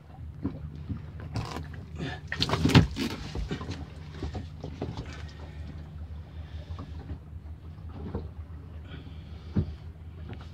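A boat's engine hums low and steady under a run of knocks and scuffs on the deck, the loudest a little under three seconds in, as a large conger eel and a gaff are handled on board.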